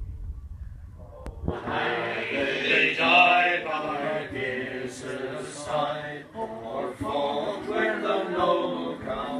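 A mixed group of men and women singing a folk song together, unaccompanied, starting about a second and a half in. Before they start there is a low rumble.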